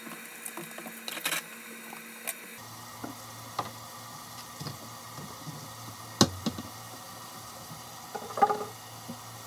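Kitchen items being handled and put away in cupboards: a few sharp knocks and clacks over a steady low hum. The loudest knock comes about six seconds in, and a short cluster near the end comes as a cabinet door is handled.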